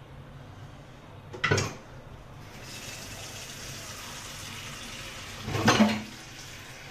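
Kitchen tap running into a wok in a steel sink, a steady hiss of water that starts about two and a half seconds in. A sharp knock comes about one and a half seconds in, and a louder clatter near the end.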